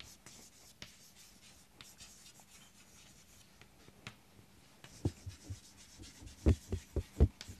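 Chalk writing on a blackboard: faint scratching strokes, then a quick run of sharper taps and scrapes of the chalk against the board over the last couple of seconds.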